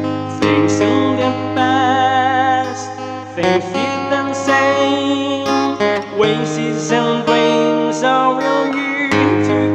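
A man singing with vibrato on held notes, accompanying himself by strumming an acoustic guitar.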